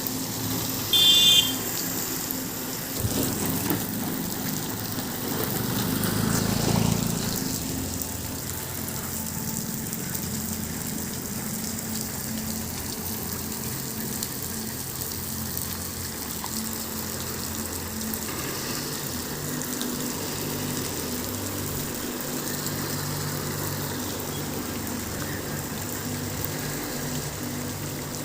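Waterfall water pouring with a steady rushing hiss, over a car engine running low. A car horn toots briefly about a second in.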